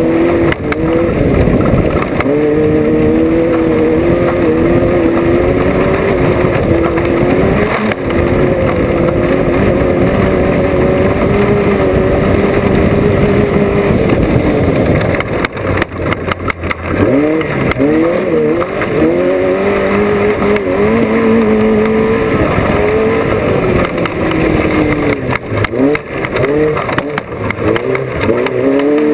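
Off-road race vehicle's engine at speed, its pitch rising and falling over and over with throttle and shifts. About halfway through it drops back for a moment, then climbs again in several quick revs, with runs of knocks from the vehicle around the middle and again near the end.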